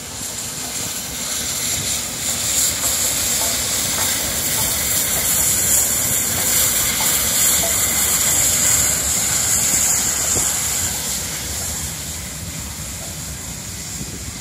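Steam hissing from the LNER Peppercorn A1 Pacific steam locomotive 60163 Tornado: a loud, continuous high hiss that swells about two seconds in and eases off after about eleven seconds.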